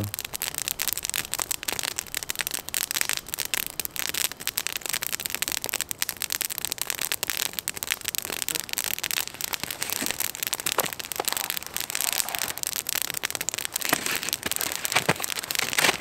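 Small wood campfire of sticks and twigs crackling and popping steadily as it burns well.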